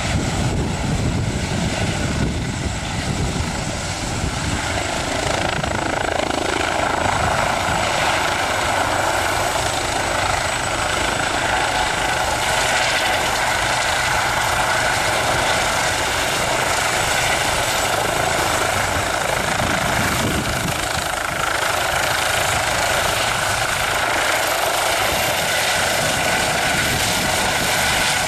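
Eurocopter EC135P2+ helicopter hovering just above the ground: the steady, loud running of its twin turboshaft engines, main rotor and shrouded Fenestron tail fan.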